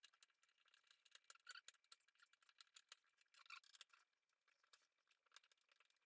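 Near silence, with faint, scattered small clicks and ticks.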